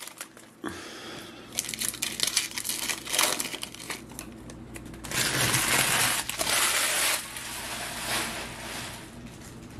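Foil trading-card pack wrappers crinkling and crumpling in the hands, in irregular bursts, with a louder, longer crinkle lasting about two seconds starting about five seconds in.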